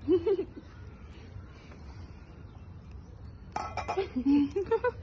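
Large stemmed glasses clinking together in a toast, a quick cluster of sharp clinks about three and a half seconds in, with people's voices before and after.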